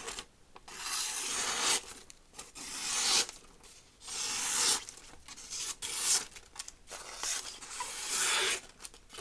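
A freshly sharpened chef's knife slicing curved cuts through smooth magazine paper in a cut test of the new edge: about five drawn-out slicing strokes, each lasting up to a second, with short pauses between.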